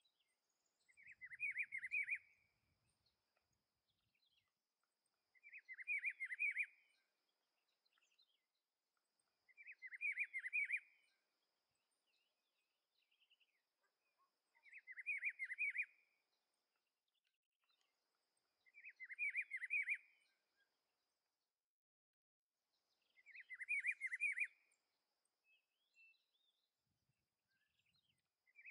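Rufous-browed peppershrike (pitiguari) singing: a short, rich warbled phrase repeated about every four to five seconds, six times.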